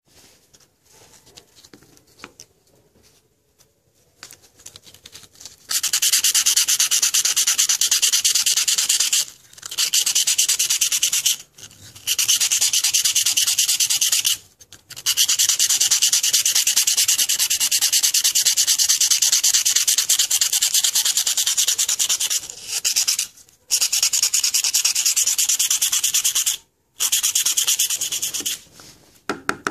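Sanding sponge rubbed back and forth by hand over the copper face of a freshly CNC-milled circuit board, a fast, loud scratchy rasp. It starts about six seconds in and runs in long spells, with brief pauses a handful of times.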